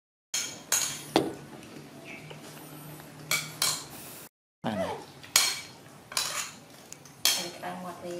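Metal spoon clinking and scraping against a ceramic plate of rice, about ten sharp clinks at uneven intervals, broken by two brief silent gaps.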